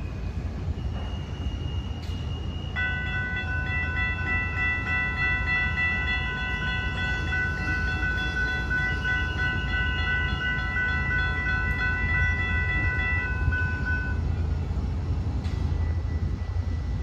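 Train's multi-tone air horn sounding one long blast of about ten seconds, starting about three seconds in, over a steady low rumble.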